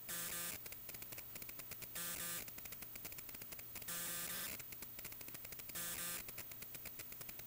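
Rapid ticking over a low steady hum, broken about every two seconds by a short buzzing tone.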